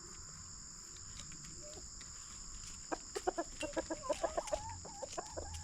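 Chickens clucking in a quick run of short calls, starting about three seconds in, over a steady high-pitched insect drone.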